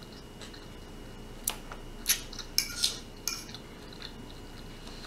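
A metal fork clicking and scraping against a plastic plate: about five sharp clicks in quick succession over two seconds, starting about a second and a half in.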